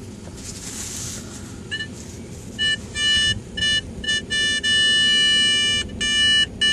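Metal detector's audio tone beeping on and off at one steady pitch, about ten beeps of different lengths with one held for about a second, as it is swept over a target: a silver dime lying on edge in the hole. A brief soft hiss comes before the first beep.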